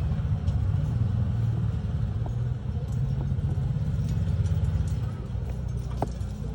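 Washing machine running, a steady low rumble.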